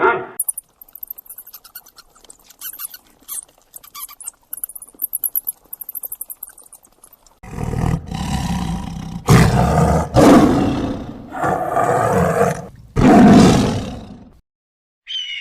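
Faint, very high squeaking for the first seven seconds or so. Then a large animal roars five times in a row, each roar loud and about a second long.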